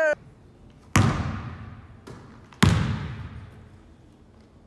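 A basketball bouncing twice on a hardwood gym floor, each bounce a sharp thud with a long echo that fades over more than a second.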